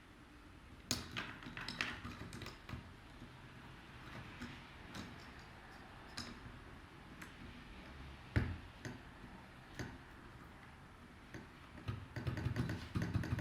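Plastic clicks and taps of a spacebar keycap being worked onto a mechanical keyboard: scattered single clicks, then a quick run of clicking and rattling near the end.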